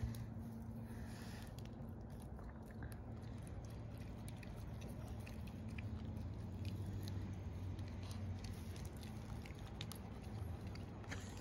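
Yorkshire terriers nibbling and chewing small phlox flowers: scattered faint clicks and crunches over a low steady hum.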